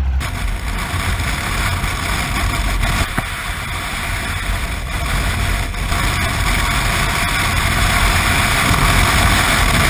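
Yamaha Super Ténéré's parallel-twin engine running under way, mixed with rushing wind noise, growing a little louder toward the end. The bike is running well on fresh fuel after a stale-gas no-start.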